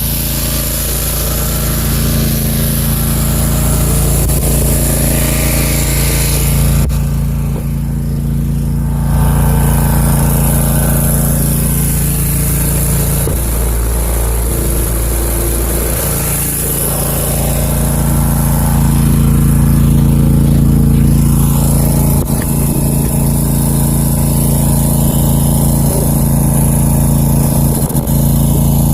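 Country Clipper zero-turn mower's engine running steadily under load, towing a rotary hoe that has sunk deep into mud; its note shifts briefly about halfway through.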